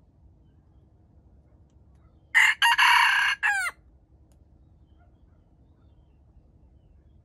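Red junglefowl rooster crowing once, about two seconds in: a short crow of just over a second, broken into a few parts and ending in falling notes.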